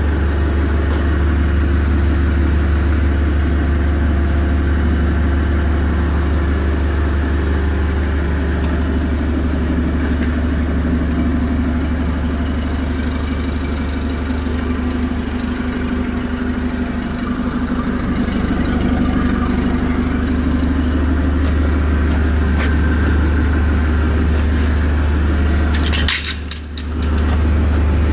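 Clark forklift truck's engine idling steadily, a low continuous hum. Near the end a brief rustle breaks in.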